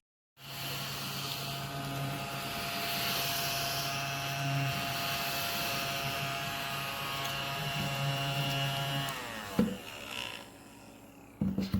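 Small battery-powered desk vacuum's motor switching on and running with a steady hum for about nine seconds, then switched off and winding down in pitch. A click and a few light handling knocks follow near the end.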